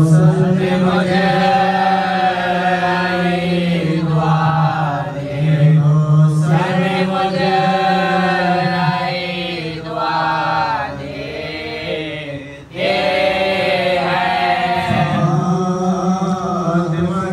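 Voices chanting a nauha, a Shia mourning lament, in long drawn-out sung phrases that break off twice and resume.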